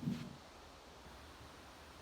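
Quiet room tone with a faint steady hiss, after a brief voice sound at the very start.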